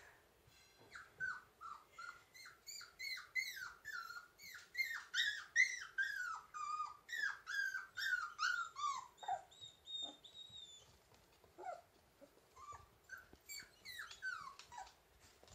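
Three-week-old puppies whimpering: a quick run of short, high whines that slide down in pitch, two or three a second, thinning out after about nine seconds to a few scattered whines.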